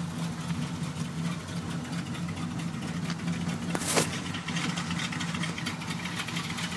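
350 Chevy V8 idling steadily, with a sharp click about four seconds in.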